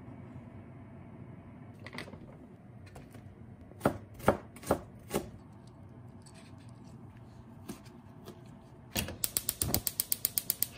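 Four sharp taps, then a gas hob's spark igniter clicking rapidly, about ten clicks a second for nearly two seconds, as the burner is lit.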